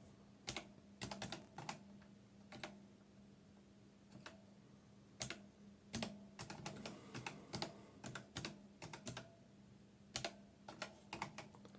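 Keys being typed on a computer keyboard, irregular single clicks and quick runs of keystrokes, over a faint steady low hum.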